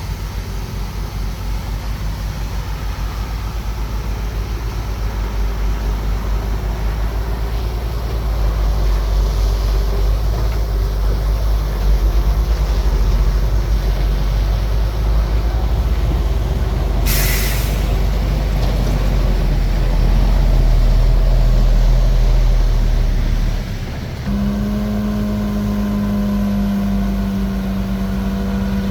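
Heavy diesel engine of a bulldozer running under load, getting louder for a while in the middle. A short burst of hissing air comes about two-thirds of the way through, and near the end the engine eases off to a steadier hum with a clear pitched tone.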